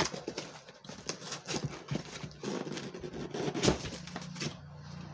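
A cardboard reel box being handled and opened: flaps scraping and folding with irregular knocks, the sharpest about two-thirds of the way through.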